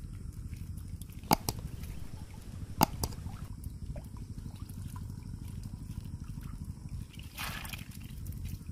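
Water dripping and sloshing as a mesh fish trap full of small fish is lifted out of shallow field water and handled. Three sharp clicks come about a second and three seconds in, and a short splash follows near the end.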